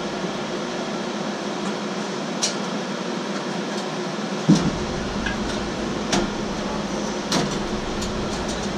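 Screws being worked by hand with a screwdriver into a server rack's mounting rail: a few light metal clicks and one sharper knock about halfway through, over the steady hum of running fans.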